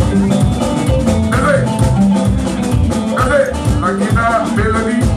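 A live Congolese dombolo band playing, with amplified voices singing over bass, drums and percussion at a steady beat.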